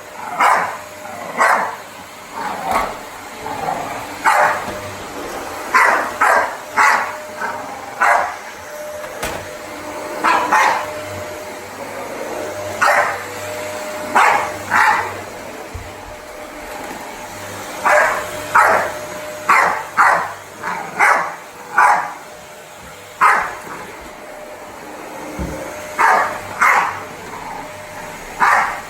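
A dog barking over and over in short sharp barks, often two or three in quick succession, with a vacuum cleaner running steadily underneath.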